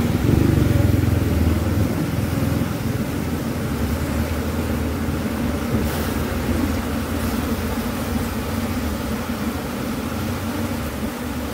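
Asian honeybees (Apis cerana) buzzing around an opened hive as a comb frame is lifted out: a steady, dense hum, a little louder in the first two seconds.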